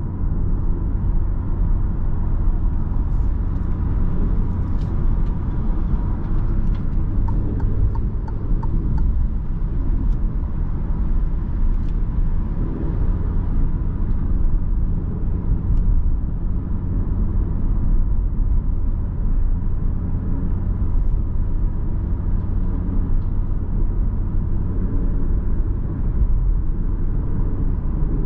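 Cabin sound of a 2022 Alfa Romeo Giulia Veloce with its 2.0-litre turbo four-cylinder, cruising at a steady pace: a steady low rumble of engine and tyre noise, without revving up or down.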